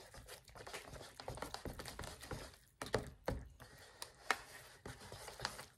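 Chopsticks stirring instant noodles in a paper cup: irregular clicks and scrapes against the cup wall, with a few sharper knocks about three and four seconds in.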